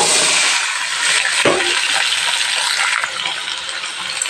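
Chopped mixed vegetables (radish, carrot, drumstick and others) sizzling loudly in hot oil in a steel wok as they are lightly fried and stirred, with a single knock about a second and a half in.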